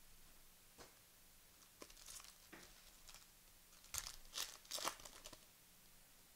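Plastic trading-card pack wrapper crinkling and tearing open in a few short bursts, loudest about four to five seconds in.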